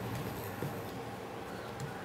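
Soft dull taps and shuffles of a fish piece being pressed and turned in a semolina and rice flour coating on a ceramic plate, over a steady low room hum.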